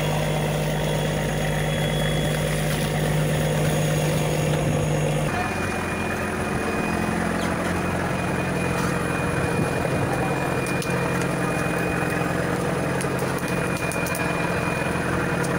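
Fishing boat's inboard engine running steadily, a constant low drone. Its hum changes abruptly about five seconds in, with a few faint clicks later on.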